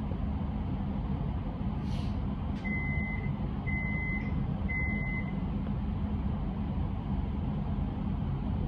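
Three evenly spaced beeps, each about half a second long and a second apart, from a stationary Metro X'Trapolis electric train: the door-closing warning. They sound over the train's steady low hum and come just after a short sharp click.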